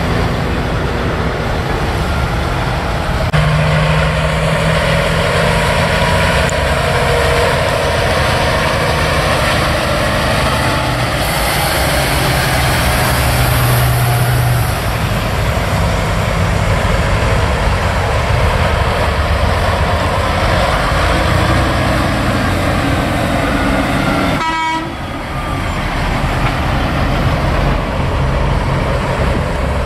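Semi trucks driving past one after another close by, their diesel engines and tyres making a loud, steady rumble.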